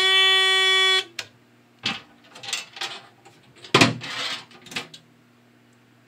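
Simplex 4001 fire alarm panel sounding a steady buzz for about a second as it is reset, cutting off sharply. Then a few knocks and scrapes as the panel's door is shut.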